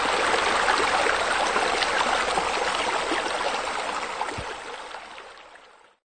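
Steady rush of running, splashing water. It fades away over the last couple of seconds and stops just before the end.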